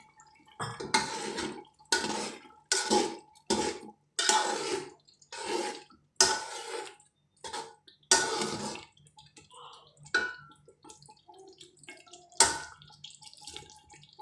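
Water being added to the chicken curry in a cooking pot, heard as about ten short splashing, clattering bursts with brief pauses between them.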